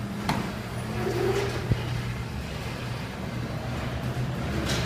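Car door being opened: a click of the door handle and latch, then a short knock as the door swings open, over a steady low hum.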